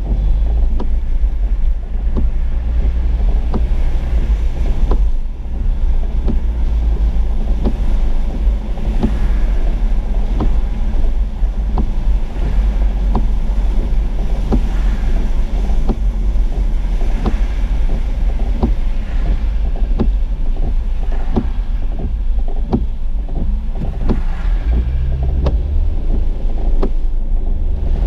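Inside a car driving through heavy rain: a steady low rumble of the car on the wet road, with many irregular taps of rain striking the windshield and roof.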